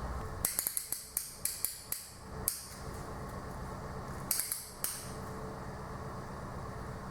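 Sharp metal clinks and taps from engine parts and tools being handled during piston and ring assembly: a quick run of about eight clicks in the first couple of seconds, then three or four more around four and a half seconds in.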